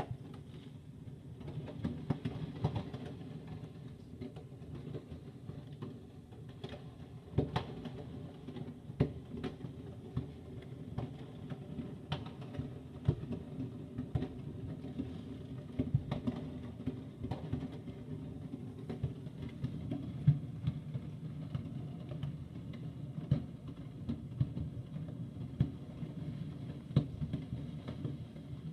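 Fireworks going off at a distance: irregular sharp bangs and crackles, one to a few a second, some louder than others, over a steady low rumble.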